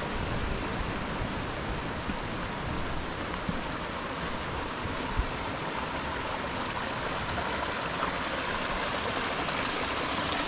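Steady rushing of a mountain stream, with one brief knock about halfway through.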